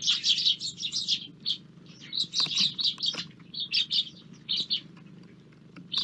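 A flock of Eurasian tree sparrows chirping busily at a bird feeder, in rapid overlapping bursts that thin out and stop about five seconds in.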